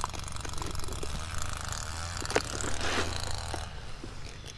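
Fishing rod and spinning reel being handled on the ice: scattered light clicks and a mechanical rattle, with one sharper click a little past halfway. A steady low rumble runs underneath and drops away near the end.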